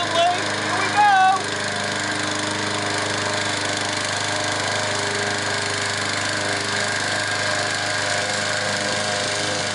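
Pull-start walk-behind petrol lawn mower engine running at a steady speed. Voices call out over it in the first second or so.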